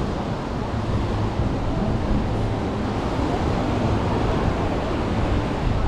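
Steady wash of ocean surf on a beach, mixed with wind buffeting the microphone.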